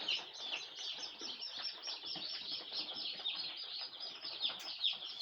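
A brood of day-old chicks peeping nonstop, many short, high, falling peeps overlapping.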